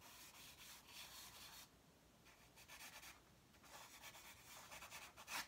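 Side of a charcoal stick rubbed across drawing paper in broad shading strokes: a faint scratchy hiss in about three long passes, ending in a short, sharper stroke.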